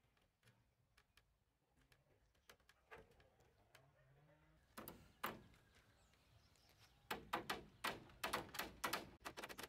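Claw hammers nailing wooden roof battens onto rafters. A few scattered knocks come first, then from about seven seconds in a quick run of sharp hammer blows, several a second.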